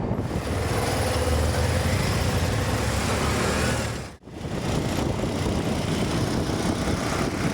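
Vehicle engine and road noise heard from a moving vehicle: a steady rumble with a brief break a little past halfway.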